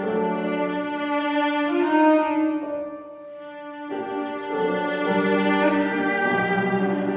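Cello and piano duo playing a classical sonata: the bowed cello carries a sustained melody over piano accompaniment. The music eases into a brief lull about three seconds in, then both resume fuller a second later.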